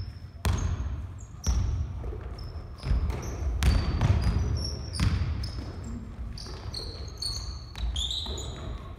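Basketball bouncing on a hardwood gym floor, a hard thud every second or so that rings in the hall, with sneakers squeaking on the floor in short high chirps between the bounces.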